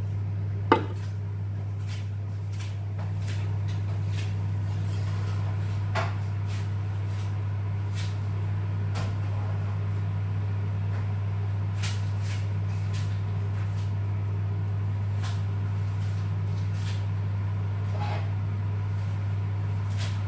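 A steady low hum with a sharp knock about a second in. A softer knock follows a few seconds later, and faint scattered clicks and taps come in the second half.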